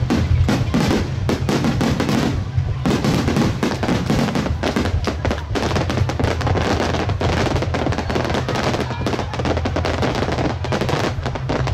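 Fireworks display: a rapid, continuous barrage of overlapping shell bursts and crackling, with no pause between the bangs.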